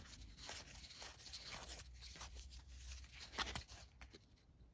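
Faint rustle and soft clicks of a deck of card-stock game cards being thumbed through in the hand, with two sharper flicks about three and a half seconds in.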